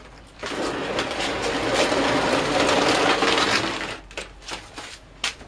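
Grape crusher-destemmer crushing grapes: a dense crackling crunch that starts about half a second in and lasts about three and a half seconds, followed by a few light knocks.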